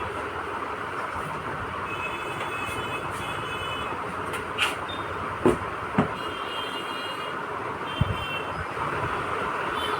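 Steady background noise with faint, short high-pitched tones coming and going, and a few sharp clicks or knocks between the middle and near the end, typical of parts being handled.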